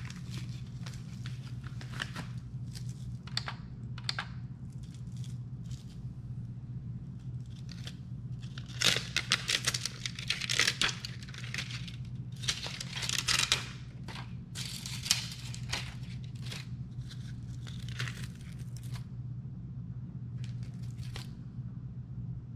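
Plastic packaging and stiff gelatin sheets crinkling and crackling as the sheets are pulled out and handled, in irregular rustles that grow louder between about nine and fourteen seconds in. A steady low hum runs underneath.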